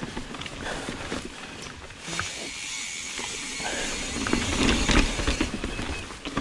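Mountain bike riding over a dirt and rock trail: tyre noise and hiss with scattered knocks and rattles from the bike over the rocks, loudest around five seconds in.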